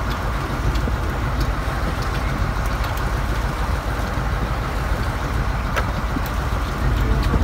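Fishing boat under way: a steady low engine rumble mixed with wind and water rushing along the hull, with a few faint clicks.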